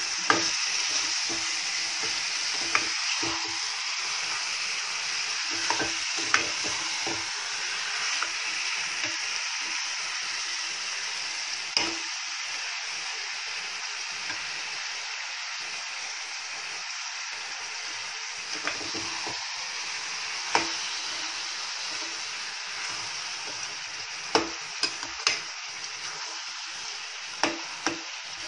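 Chicken pieces sizzling in hot oil with an onion-tomato masala in a kadai while being stirred, a steady frying hiss that eases slightly over time. A utensil scrapes and knocks against the pan every few seconds.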